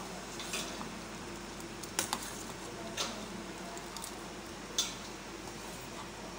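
Metal spoon stirring noodles in a pot of boiling broth, clinking sharply against the metal pot about four times over the steady bubbling.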